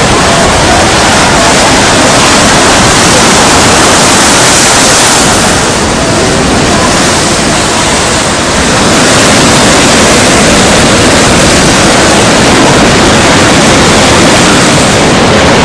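Strong sea wind buffeting the microphone over waves on a beach: a loud, dense, steady rush that eases slightly for a few seconds about midway.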